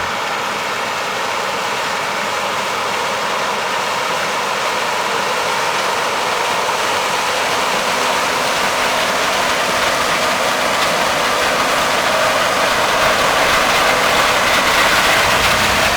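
Farm machinery running steadily, a rushing mechanical noise that grows slowly louder.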